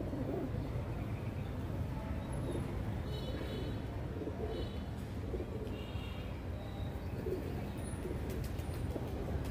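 A flock of racing pigeons cooing repeatedly as they feed, with brief high chirps about three, four and a half and six seconds in, over a steady low rumble.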